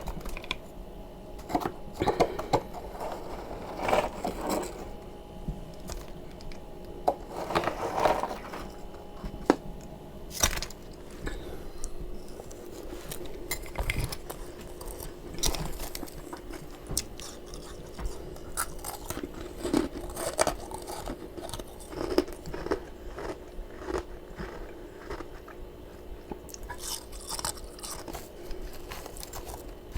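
Close-up crunching and chewing of powdery freezer frost, in irregular bites with sharp crackling crunches, some denser stretches of chewing. A faint steady hum sits underneath.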